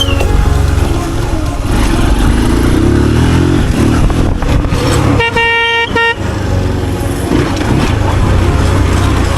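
Motorcycle riding along the road, its engine and road noise running steadily, with one vehicle horn blast lasting about a second just past the middle.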